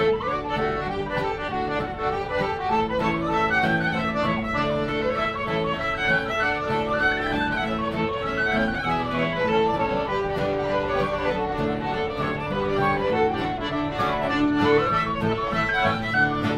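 Small acoustic folk band playing an instrumental tune: fiddle carrying the melody over accordion and strummed acoustic guitar, with a whistle.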